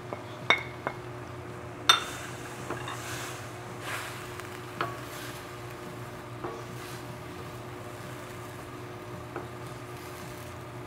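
Wooden spatula scraping sliced chicken off a plate into a wok and stirring it through broccoli in a little hot liquid, with scattered knocks and clinks of the spatula against the plate and pan and a light sizzle. The loudest is a sharp knock about two seconds in, over a steady low hum.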